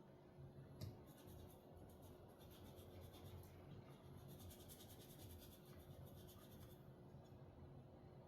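Faint, quick back-and-forth scrubbing of a small brush wet with rubbing alcohol on a circuit board, cleaning around freshly soldered joints.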